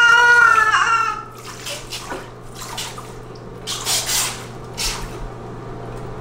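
Bathwater splashing and being poured from a cup over a baby sitting in a bathtub: several short splashes, then a longer pour about four seconds in. For about the first second the baby's high voice is heard.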